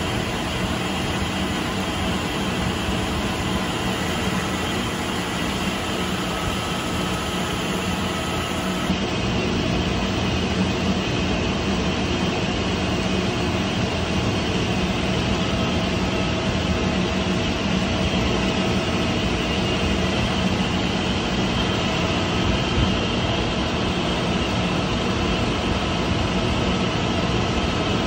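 Steady hum and rush of running industrial machinery, a centrifugal pump and its electric motor, with a low steady tone under an even noise that doesn't change.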